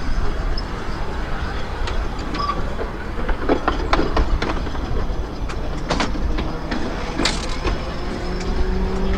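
Narrow-gauge tram running along its track: a steady low rumble with irregular clicks and knocks from the wheels on the rails. A faint rising whine comes in near the end.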